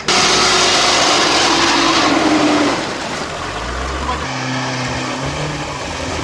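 Off-road 4x4 engine revving hard under a loud rushing noise for the first two and a half seconds, then running more quietly at steady revs.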